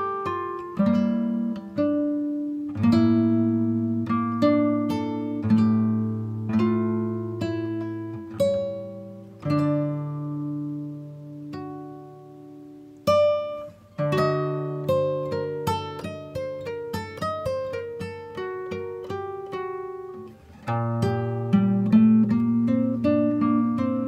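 Background music: a guitar playing a run of plucked notes, each ringing and fading.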